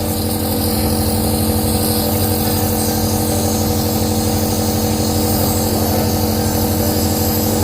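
Compressor nebulizer running, a steady even motor hum, while it turns the medicine into mist for a baby's cough and cold.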